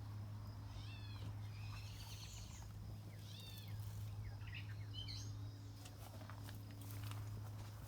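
An animal's short high calls, each a quick arch up and down in pitch, heard four or five times over a steady low hum.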